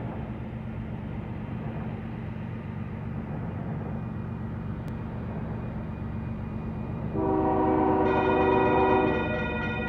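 Approaching Union Pacific freight train's diesel locomotives giving a steady low rumble. About seven seconds in, the lead locomotive's air horn sounds as a chord of several tones, loudest for about two seconds and then held more quietly.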